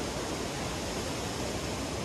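Ocean surf breaking and washing onto a sandy beach: a steady, even rush of waves.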